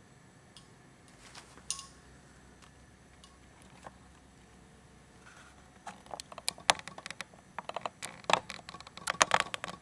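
Glass test tube in a test tube holder clinking against the inside of a glass beaker of warm water as it is moved about: a quiet stretch with a click or two, then a run of irregular sharp clicks over the last four seconds.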